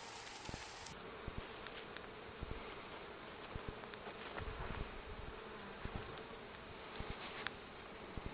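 A honeybee colony buzzing around an opened hive: a steady, even hum, with scattered short knocks and taps over it.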